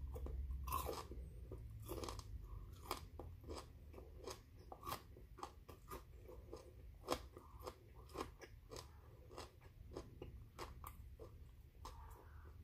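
A man biting and chewing broccoli, with short crisp crunches roughly every half second.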